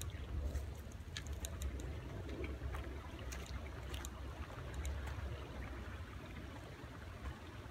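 Footsteps crunching through dry fallen leaves, heard as scattered irregular crackles, over a steady low rumble.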